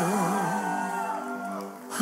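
A male singer holds a long note with a wide vibrato over soft backing music. The note fades away near the end, just before the next line begins.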